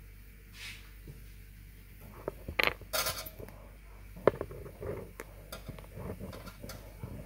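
Irregular light clicks and clatters of small hard objects knocking, with a short rattle about three seconds in and one sharp click a little past halfway.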